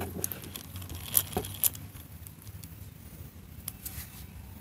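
A restored Miller Falls hand drill being handled and turned over, giving a few light clicks and knocks of its metal parts: three close together just over a second in, then a couple of faint ticks near the end.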